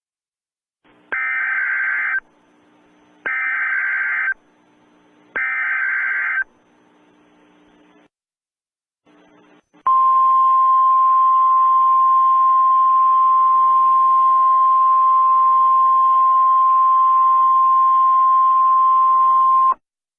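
Emergency Alert System SAME header: three one-second bursts of data-modem screech, a second apart. After a short pause comes a steady single-pitch alert tone, held about ten seconds over faint radio hiss, that cuts off sharply. Together they are the signal that an emergency alert broadcast is about to follow.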